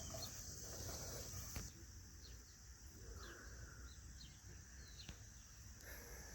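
Faint outdoor ambience: a steady high insect drone with scattered short, quick bird chirps.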